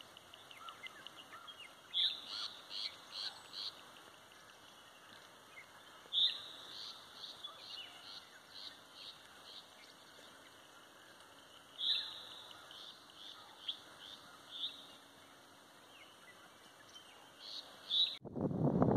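A songbird singing in repeated high phrases, each a sharp note followed by a quick run of shorter notes, every few seconds. Near the end, loud wind rumble on the microphone cuts in abruptly.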